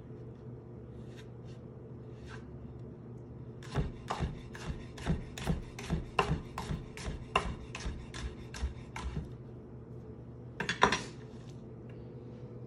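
Chef's knife slicing a green bell pepper into thin strips on a wooden cutting board: a quick run of knife strikes on the board, about four a second, from about four to nine seconds in. A louder clatter comes near the end, over a steady low hum.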